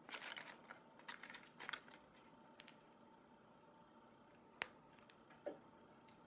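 Small plastic LEGO minifigure pieces being handled and fitted together: light clicks and rattles, busiest in the first two seconds, with one sharp click a little past halfway.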